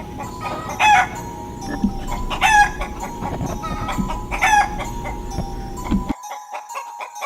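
Chicken clucking: three loud clucking calls about a second and a half to two seconds apart, with softer clucks between them over a steady faint hum.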